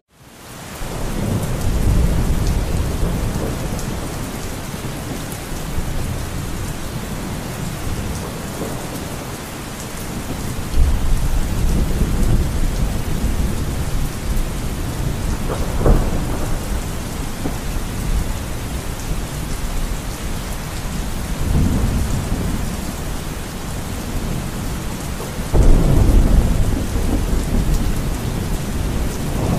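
Steady rain falling on wet grass and ground, with low rolling thunder swelling several times. The loudest rumble comes near the end.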